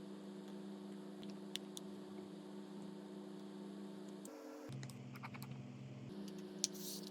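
Steady electrical hum whose pitch changes abruptly a little past halfway, with a few light clicks and taps.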